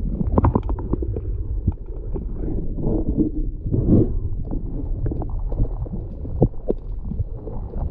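Water sloshing and gurgling against a sea kayak's hull as it is paddled, with a low rumble and irregular knocks and splashes throughout.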